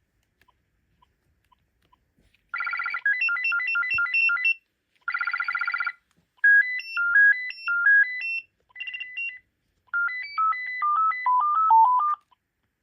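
BT XD56 cordless phone handset playing a run of its ringtones: short electronic beeping melodies, each a second or two long, separated by brief gaps, starting about two and a half seconds in. The last tune steps down in pitch.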